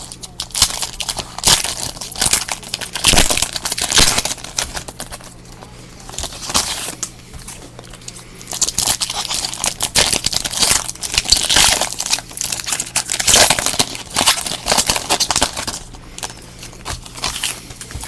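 Foil wrappers of trading-card packs being torn open and crinkled by hand, in irregular bursts of crackling.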